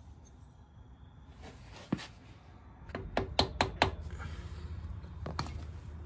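Rubber mallet striking the engine case of a Yamaha Moto-4 350 ATV: a single knock about two seconds in, a quick run of five strikes about a second later, and one more strike near the end.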